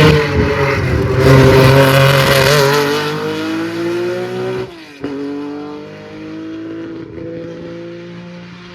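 A rally car's engine at full throttle through a curve, accelerating away with its pitch climbing. There is one quick gear change about five seconds in, after which it pulls again and fades as the car drives off.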